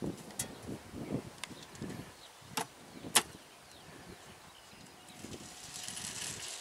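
Corn seed being loaded into a Monosem planter's plastic seed hoppers from a bucket: a few sharp knocks of hopper lid and bucket, then a hiss of seed pouring near the end.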